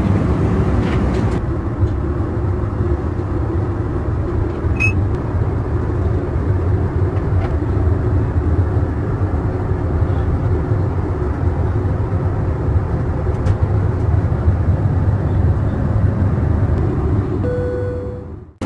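Steady low cabin roar of an Airbus A321 in flight: engine and airflow noise heard inside the cabin.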